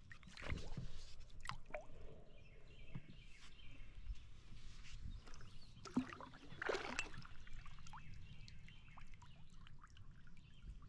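Water splashing and sloshing against the side of a canoe, with small knocks and clicks against the hull. The two louder splashes come about half a second in and again around six to seven seconds in. Faint birdsong sits in the background.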